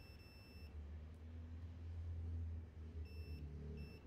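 Three high electronic beeps: one of about two-thirds of a second at the start, then two short ones about three seconds in, over a low steady hum.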